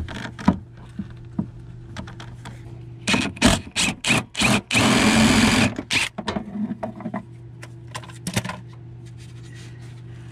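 Hand ratchet with a socket on an extension working a bolt loose, clicking in short spurts, with one quick unbroken run of ratcheting about five seconds in. A steady low hum sits underneath.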